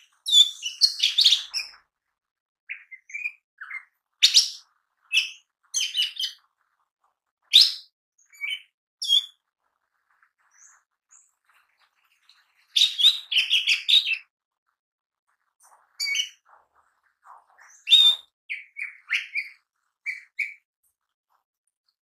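Cucak ijo mini, a small leafbird, singing in quick bursts of varied chirps and whistles, with short gaps between phrases. The busiest runs come at the start and again about 13 and 18 seconds in.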